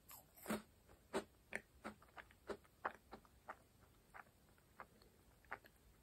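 Faint, close-miked chewing of a crisp meringue cookie with the mouth closed: short soft crackles and clicks, about two a second at first, thinning out toward the end.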